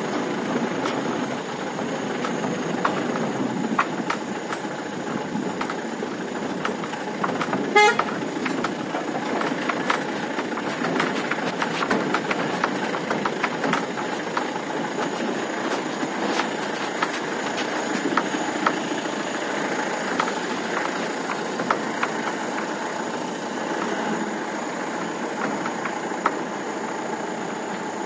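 Mahindra Bolero pickup driving over a rough dirt track: the engine running under a steady din of body and load-bed rattles and knocks, with one short horn toot about eight seconds in.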